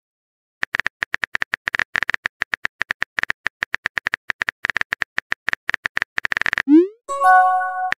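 Simulated phone keyboard taps clicking rapidly for about six seconds, then a quick rising whoosh and a short chime of several steady tones as the message is sent.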